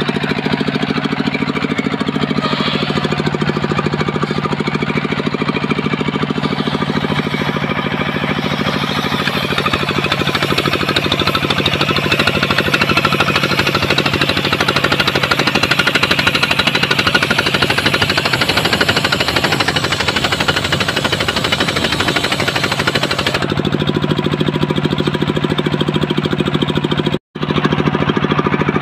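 Large table circular saw ripping a coconut palm log lengthwise, over the steady drone of the machine driving it. The cutting noise grows louder and higher through the middle and drops back near the end as the cut eases off.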